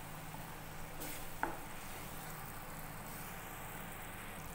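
Watery spice-and-garlic paste sizzling and bubbling in oil in a frying pan while a wooden spatula stirs it, the water cooking off. A single light knock about a second and a half in.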